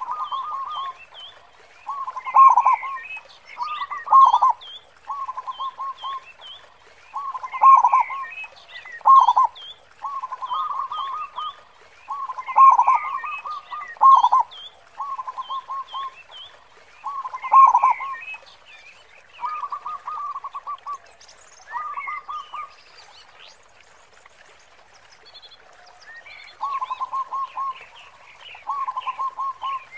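Zebra dove (perkutut) singing, repeating its rolling staccato cooing phrases every second or two, each with a big, deep ending note, with a lull of a few seconds about two-thirds of the way in. Fainter high chirps from another small bird sound between the phrases.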